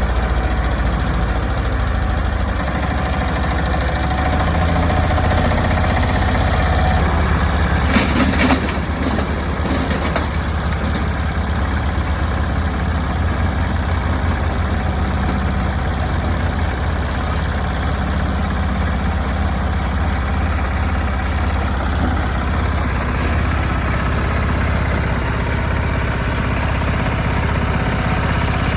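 Jiangdong JD300 30 hp single-cylinder diesel engine running steadily with a low, even beat. A brief clatter comes about eight seconds in.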